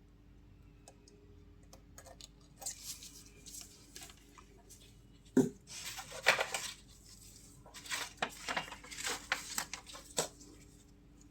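Light metallic clicks and short scrapes of a metal tool against an inverter AC outdoor-unit circuit board while its capacitor is being discharged, with one sharper click about five seconds in.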